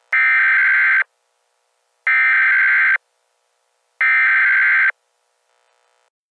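Emergency Alert System SAME header: three identical bursts of buzzy digital data tones, each just under a second long and about a second apart. These are the coded bursts that open an alert, here ahead of a national emergency message.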